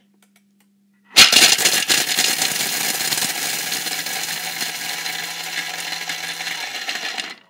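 Thermomix TM6 running at speed 10, its blades grinding pieces of dark chocolate into fine powder: a loud noisy grind full of rapid clicks. It starts abruptly about a second in, loudest at the start, and cuts off shortly before the end.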